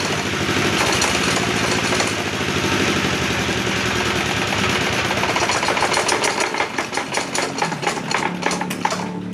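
Donghai 16 hp single-cylinder diesel engine running steadily. About halfway through its separate firing beats become distinct and uneven, and just before the end the higher clatter drops away suddenly, leaving a lower steady drone.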